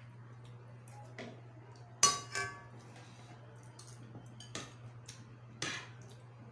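Spoons clinking against bowls and plates during a meal: a few sharp, separate clinks, the loudest about two seconds in with a brief ring, over a steady low hum.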